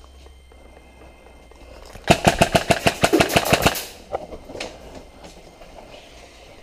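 Airsoft gun firing a full-auto burst of about a dozen rapid shots, about eight a second, starting about two seconds in and lasting under two seconds.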